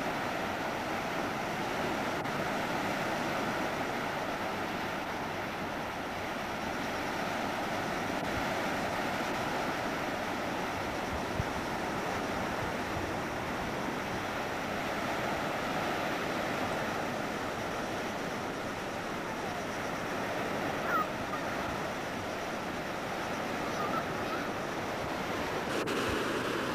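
Sea surf breaking and washing up a flat sandy beach, a steady, even rushing of waves.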